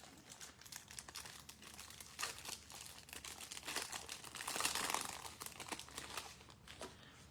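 Faint rustling and light clicks of trading cards being handled and slid against one another while being flipped through, busiest about two-thirds of the way in.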